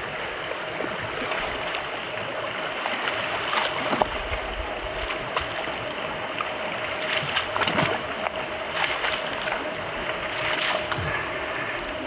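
Shallow, muddy stream rushing over rocks, with feet splashing and sloshing as people wade through it, the splashes loudest about four seconds in and again around eight seconds in.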